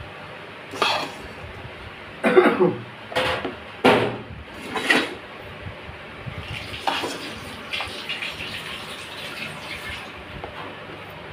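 Metal spoon spreading dry fried vermicelli in a plastic box: several loud scraping strokes against the plastic in the first half, then lighter, quicker scratching and rustling of the strands.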